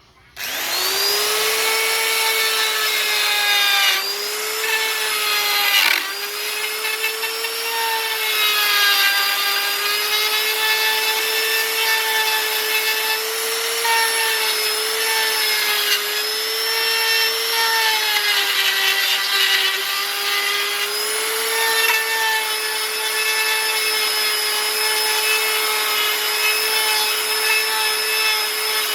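Electric power carving tool spinning up with a rising whine, then running steadily while it cuts wood, its pitch dipping briefly now and then as it bites in, with a rasping sound of wood being cut.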